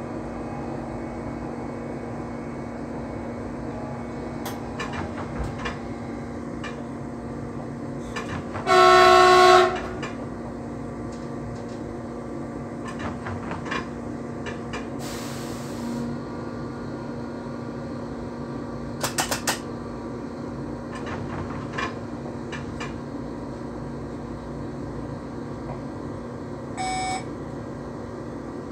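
Steady running noise and a constant low drone inside a train's driver's cab as it travels. About nine seconds in a train horn sounds one loud blast of about a second. A short hiss follows near the middle, then a quick run of clicks and a brief beep near the end.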